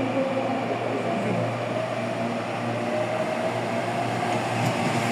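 CPTM Série 8000 electric multiple-unit train pulling away, its traction motors growling under a steady low hum. A whine rises slowly and evenly in pitch as the train gathers speed.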